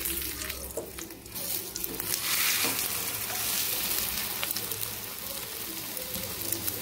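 Potato-and-onion omelette sizzling in hot oil in a nonstick frying pan as it is flipped, the sizzle growing louder about two seconds in, with a few light clicks of the metal spatula.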